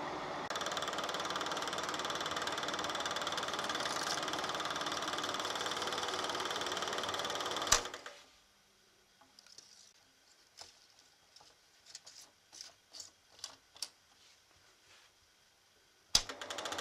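Sankyo Dualux 1000 8 mm film projector running with a steady mechanical whir. It stops with a sharp click about eight seconds in, and a few light clicks sound in the pause. Another sharp click near the end starts it running again.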